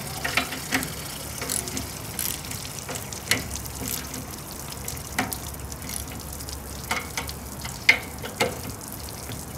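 Socket ratchet wrench tightening the bolts of an Edwards & Cromwell C-2 pipe patch clamp: scattered sharp metal clicks and clacks, over a steady hiss of water still leaking from the pipe under the clamp.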